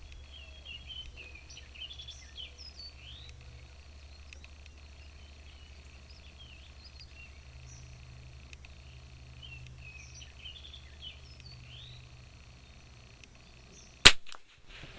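Birds chirping in the background, then a single sharp shot from a Kimber 82G .22 rimfire target rifle near the end.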